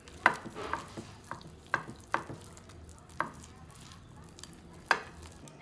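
Wire whisk beating a thick flour, egg and milk batter in a bowl. It clacks sharply and irregularly against the side of the bowl, about seven times, over a soft scraping of batter.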